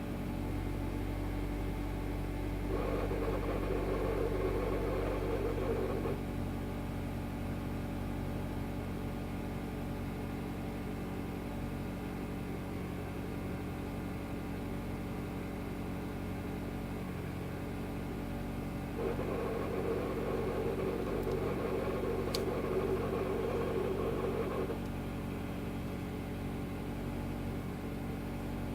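Mitsubishi Lancer Evolution X's turbocharged 2.0-litre four-cylinder idling steadily, with a harsher, noisier sound that swells in twice for a few seconds each: about three seconds in and again around twenty seconds in. The uploader calls it an abnormal engine noise at idle.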